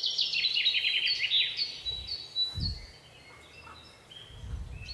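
Birds chirping: a quick run of short, falling chirps, many a second, that thins out after about two and a half seconds into fainter, scattered calls. A brief low rumble of wind on the microphone comes in the middle and again near the end.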